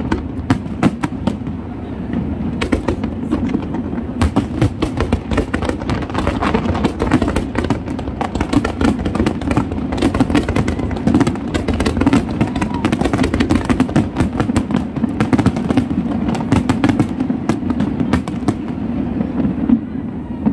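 Aerial fireworks going off in a dense barrage: many sharp bangs and crackles a second, one on top of another, over a steady low rumble.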